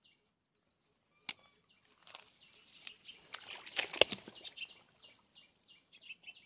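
Rustling and clicking handling noise: a single sharp click a little after one second, then a cluster of rustles and clicks, loudest about four seconds in. Behind it, steady rhythmic insect chirping.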